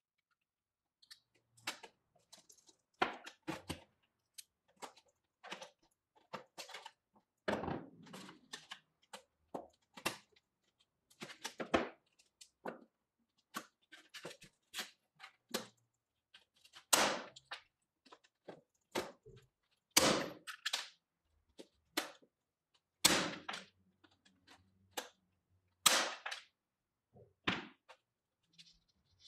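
Truper hand rivet tool setting pop rivets in aluminium angle: light clicks and handling knocks, with sharp snaps as the rivet mandrels break off, the loudest about every three seconds in the second half.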